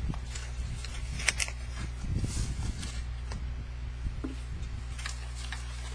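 A cardboard subscription package being opened by hand: a few sharp clicks and snaps with some handling noise in the middle, over the steady hum of a desk fan.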